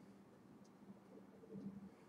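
Near silence: room tone with a faint steady low hum and a few faint ticks.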